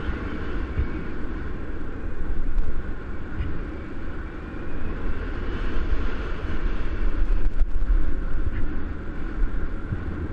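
Wind rushing over the camera microphone of a paraglider in flight: a loud, steady low rumble that swells and eases in gusts.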